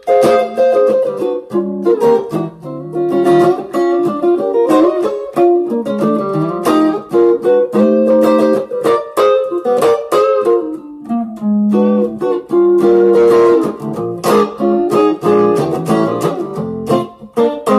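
Squier Strat-style electric guitar played through a Zoom G1on multi-effects pedal, improvising a B-flat blues with quick picked single-note lines and a few held chords.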